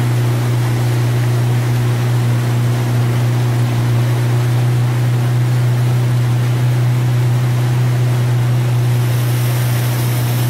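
Small boat's outboard motor running at a steady cruising speed: a constant low drone over a rush of water and wind noise, the hiss growing brighter near the end.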